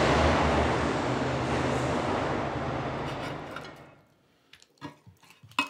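A steady mechanical rumble with a low hum, from a running motor, that fades away about four seconds in. Then a few light knocks and clicks.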